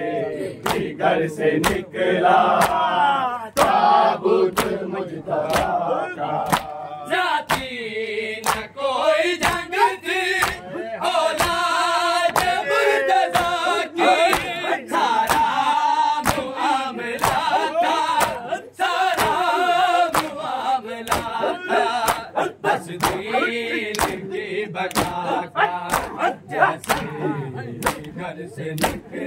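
A group of men chanting a noha lament in chorus, with steady rhythmic slaps of hands beating on chests (matam) keeping the beat.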